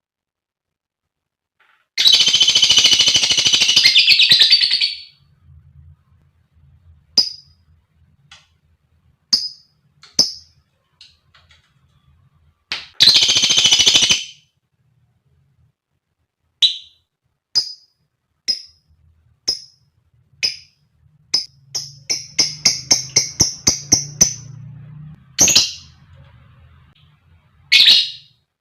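Female lovebird calling: sharp, high single chirps about once a second, broken by two long shrill chattering bursts (about three seconds, then a second and a half) and a fast run of chirps near the end.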